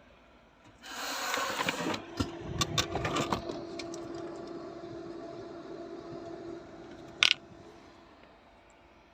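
Handling noise from tools and parts being worked: a scraping burst about a second in, then a run of clicks and knocks, a faint steady hum, and one sharp click near the end.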